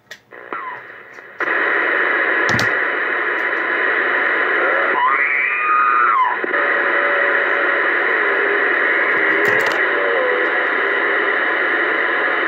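Uniden Bearcat 980SSB CB radio receiving on channel 19 AM: a loud, steady hiss of static from its speaker comes on suddenly about a second and a half in as an incoming signal opens it up, with a weak, garbled voice faintly heard through the noise and two brief clicks.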